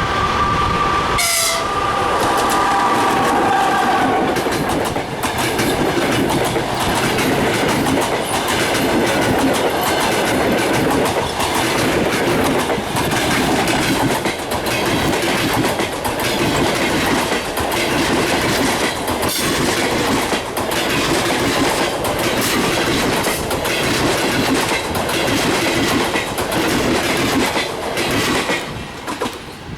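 Passenger coaches of an express train running past at speed, the wheels clicking in a steady rhythm over rail joints under a loud rolling rumble. A steady sound of several held tones carries through the first few seconds, and the rumble falls away near the end as the train's tail passes.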